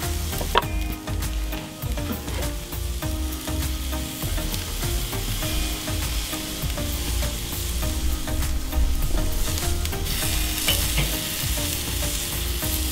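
Marinated chicken tenders sizzling on the hot grate of a charcoal kettle grill: a steady crackling hiss, with a few light clicks and a low rumble that comes and goes beneath it.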